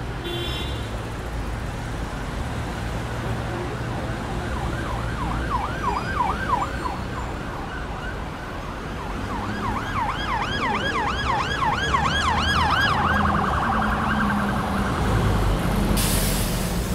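Steady rumble of city street traffic with an emergency vehicle's siren in yelp mode: quick rising-and-falling sweeps, about three or four a second, in two spells, changing to a faster warble just before a short hiss near the end.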